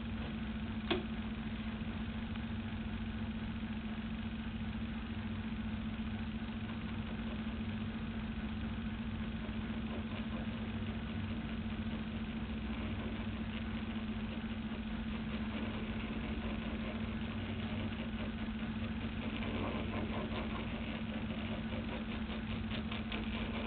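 Steady low hum, with a single sharp click about a second in.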